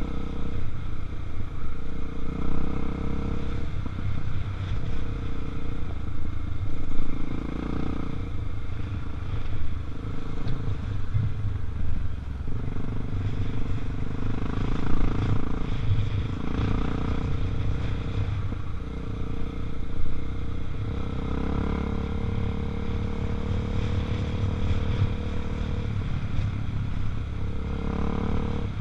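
Honda Tornado 250 single-cylinder four-stroke motorcycle engine running under way, its note rising and falling with the throttle.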